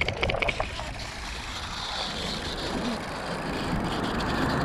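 Wind rushing over the microphone and tyre noise while riding a bicycle, slowly growing louder, with a few quick clicks right at the start.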